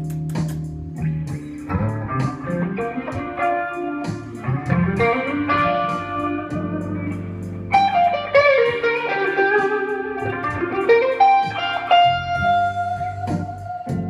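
Amplified Les Paul-style electric guitar playing a blues lead line, with bent notes gliding up and down about halfway through, over low held notes at the start and end.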